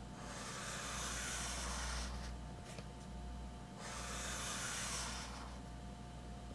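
2B graphite pencil scratching across sketchbook paper in two long, even strokes, one at the start and one from about four seconds in, each lasting a second and a half to two seconds, with short pauses as the pencil is lifted for the next diagonal line.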